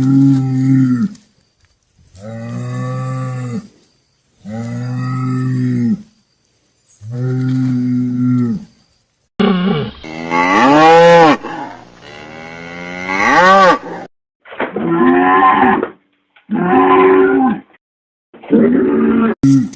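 Cattle mooing: a string of separate moos, each a second or two long, with dead silence between them. The first four are low and steady in pitch; about halfway through, louder calls begin that rise and fall in pitch, two long ones followed by three shorter ones.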